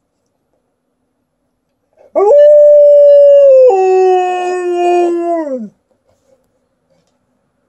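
Alaskan Malamute howling: one howl of about three and a half seconds that rises quickly to a held note, steps down to a lower held note partway through, and falls away at the end.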